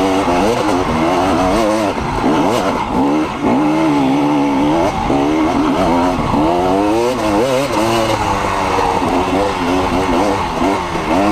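Dirt bike engine running hard on a trail ride, its pitch rising and falling constantly as the throttle is opened and closed, with a few short dips.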